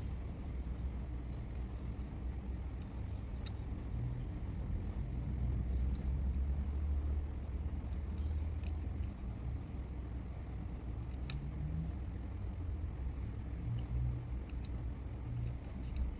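A steady low rumble with a few short faint clicks, the clicks from a small diecast model car being handled and turned in the fingers.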